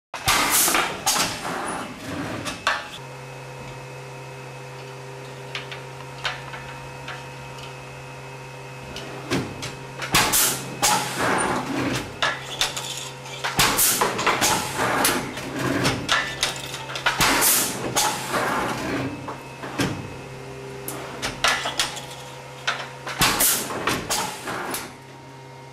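TC2 digital jacquard hand loom clattering and knocking in repeated bursts as it weaves, over a steady low hum that starts about three seconds in.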